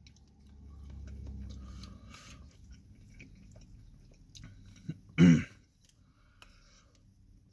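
A man chewing and biting into chicken wings with his mouth full. There is a low rumble in the first two seconds and one short, loud vocal sound from him about five seconds in.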